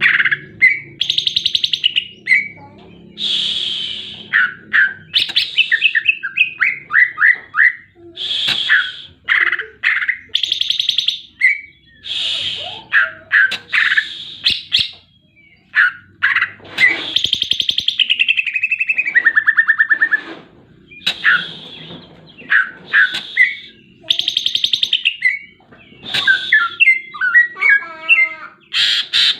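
Greater green leafbird singing a long, varied song of loud whistled phrases, fast trills and rapid runs of notes with short pauses between, its song filled with imitations of other birds' calls.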